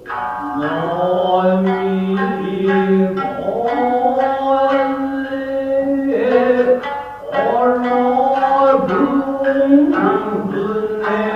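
Japanese traditional dance accompaniment: a voice singing long, drawn-out, wavering notes over plucked string accompaniment, with sharp plucked attacks breaking in every second or so.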